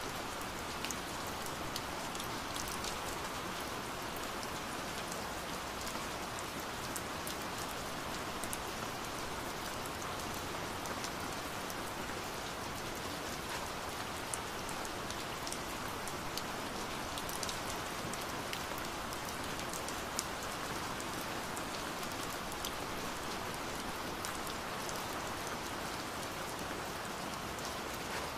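Steady rain falling: an even hiss with many single drops ticking through it.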